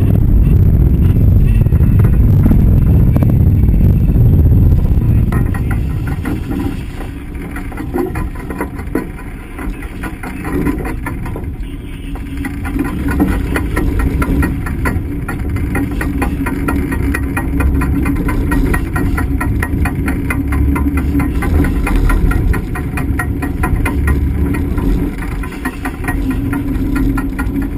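A sport-fishing boat's engine running under wind noise and rushing water, loudest in the first five seconds. After that it eases off, with a rapid, even ticking and, later, a steady hum.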